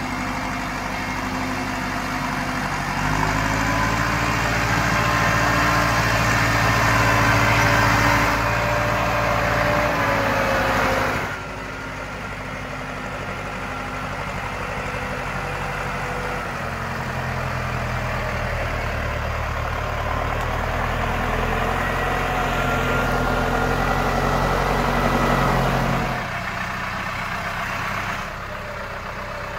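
Same Argon 80 tractor's diesel engine running, with its level and pitch shifting several times: it gets louder about three seconds in, drops suddenly around eleven seconds, builds again, and falls off near the end.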